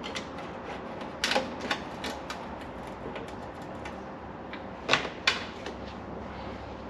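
Irregular light clicks and knocks, with a few louder knocks about a second in and just before five seconds in.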